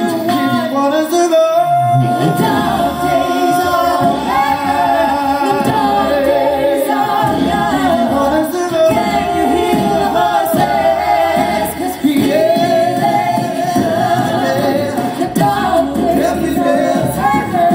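Five-voice a cappella group singing live through a PA, holding sustained vocal chords over a sung bass line with a beatboxed beat underneath.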